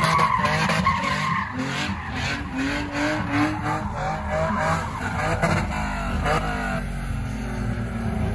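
Truck doing a burnout: tyres squealing with a wavering pitch over the engine held at high revs.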